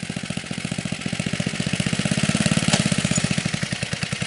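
Lawn mower engine of a homemade go-cart running as the cart drives, a fast, even train of exhaust pulses that swells a little about two seconds in, then eases.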